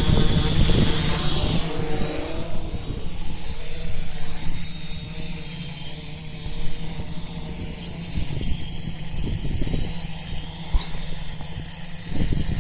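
Gusty wind rumbling and buffeting on the microphone. For the first couple of seconds an OFM 650S V2 quadcopter's motors and propellers give a steady multi-tone whine, which then fades away.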